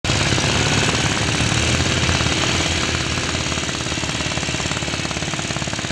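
Rapid, steady mechanical rattle of many even beats a second with a hiss over it, starting abruptly and running on without a break.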